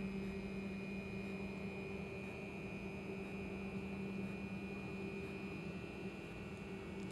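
A faint, steady hum with a constant hiss beneath it; nothing changes or stands out.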